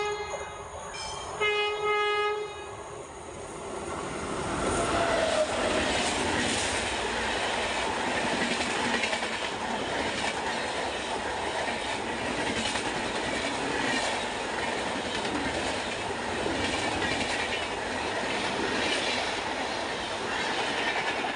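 Horn of the locomotive hauling the New Delhi–Barauni Humsafar Express, sounding twice in the first couple of seconds. The train then runs through the station at speed without stopping: a steady rumble of passing coaches with a regular clickety-clack of wheels over rail joints.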